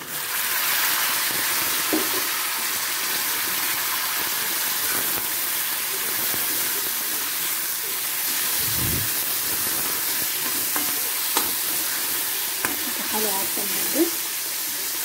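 Chopped tomatoes hitting hot oil and fried onions in a pan and sizzling, a dense hiss that jumps up suddenly as they go in and then holds steady. A spoon stirs through it with faint clicks and scrapes, and there is one short low thump near the middle.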